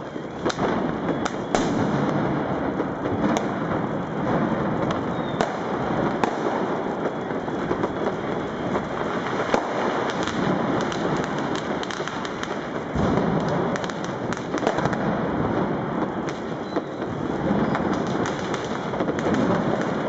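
Dense, unbroken barrage of firecrackers and fireworks going off in the streets: a constant din of many distant bangs with frequent sharper, closer cracks throughout.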